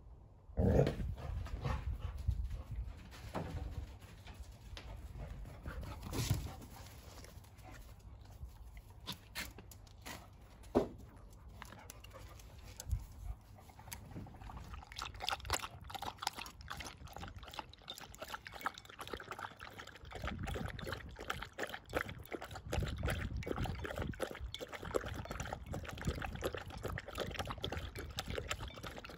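A Labrador and an English cocker spaniel playing, with dog noises and a few scattered knocks in the first half. From about halfway through comes a quick run of lapping as the dogs drink water from a bowl.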